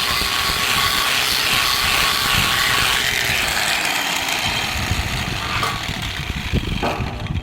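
Electric arc welding on a mild-steel pipe: a steady crackling hiss that cuts off suddenly at the end as the arc is broken.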